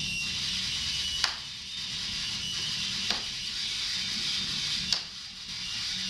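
A belt slapping against a person's backside three times, about every two seconds, each a sharp smack. Under it runs a steady electronic noise drone with a low hum.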